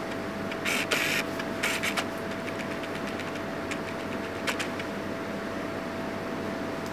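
Paintbrush scrubbing across paper on an easel: two short scratchy strokes about a second in, then a few light ticks, over a steady room hum with a faint constant tone.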